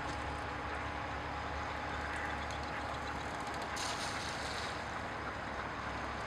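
Steady engine drone of a large canal work boat passing close by.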